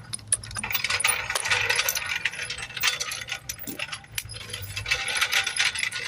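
Ratcheting torque wrench clicking rapidly as the wheel's lug nuts are run down and tightened, with metallic clinks throughout.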